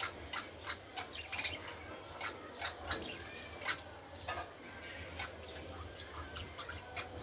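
Pet budgerigars chirping and chattering: a quick series of short, sharp chirps, with some softer warbling in the middle.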